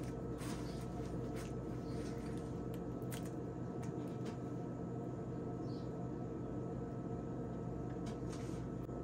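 Soft rustling and a few light crinkling ticks from a tortilla wrap as it is handled and pulled apart by hand, over a steady low background hum.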